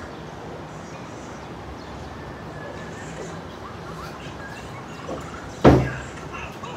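Steady hum of distant city traffic, with a single sudden loud thump about five and a half seconds in.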